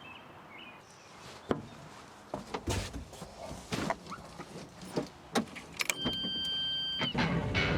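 Mini excavator being started up: scattered clunks and clicks of the cab and controls, then a steady electronic warning beep for about a second, and a low engine rumble starting just as the beep stops near the end.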